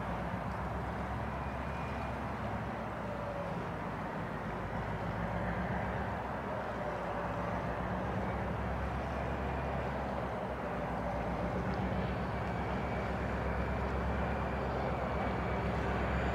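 Diesel locomotive approaching at slow speed: a steady low engine drone under a wash of noise, growing slowly louder as it nears.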